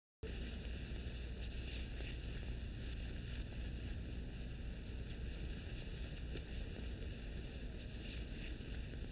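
Faint steady hiss and low hum of an old film soundtrack, with no distinct events.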